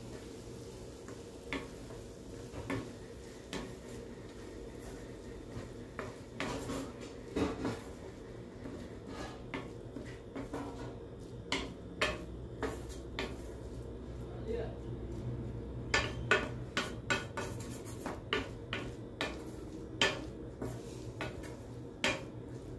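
Wooden spatula scraping and knocking against a nonstick frying pan as scrambled egg bhurji is stirred. The clicks are irregular and come more often in the second half, over a low steady hum.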